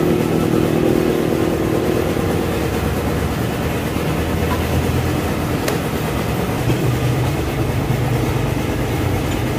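A steady low drone of a running engine or motor, its hum rising and falling slightly, with one short click about six seconds in.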